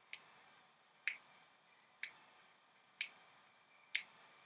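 Finger snaps keeping the beat for a cappella singing: five sharp snaps, evenly spaced about a second apart.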